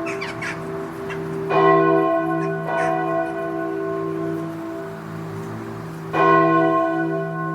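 A large bell struck twice, about four and a half seconds apart, each stroke ringing on with a long, slowly fading hum.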